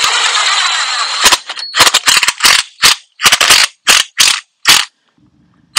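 Cordless power drill driving a screw-in anchor for a shelter into the ground. It runs steadily for about a second, then gives about a dozen short, sharp pulses in quick succession until near the end.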